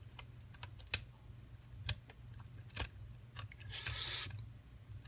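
Light metallic clicks and ticks of a hook pick and tension wrench working the pin stacks inside a pin-tumbler lock, with a brief scraping rustle about four seconds in.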